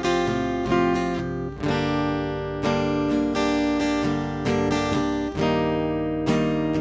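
Acoustic guitar playing a chord progression, a new chord struck every half second to a second and left to ring. Its pickup signal goes direct through a FET preamp pedal into a mixer interface rather than being picked up by a microphone.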